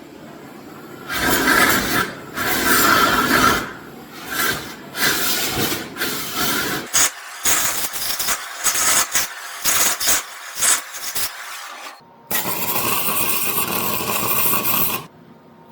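Hand tool scraping and rubbing on metal in repeated strokes, at first long and then short and separate, then a steady hiss about twelve seconds in that stops abruptly near the end.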